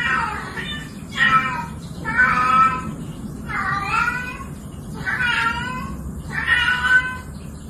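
Domestic cat meowing over and over: a string of long, wavering meows, one about every second and a half.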